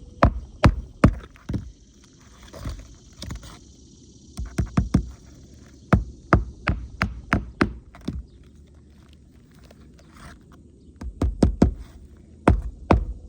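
Roofing nails being hammered through a shingle: runs of sharp knocks, a few a second, with pauses between the runs.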